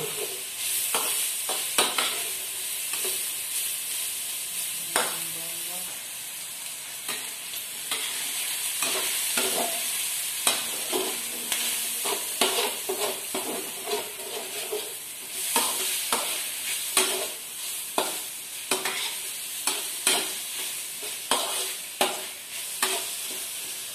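Diced meat sizzling in a wok while a slotted spatula stirs it, with frequent irregular clacks and scrapes of the spatula against the pan.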